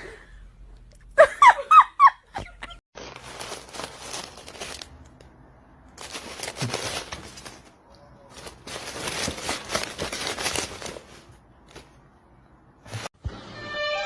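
A short voice-like call about a second in, then three bursts of rustling, crinkling noise, each one to two seconds long, and a single click near the end.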